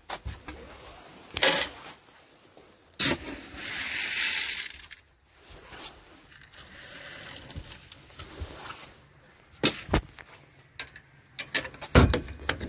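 Handling at wooden rabbit hutches while topping up feed from a bucket: a few sharp knocks and clicks of wood and wire, with a rustle of feed being poured a few seconds in.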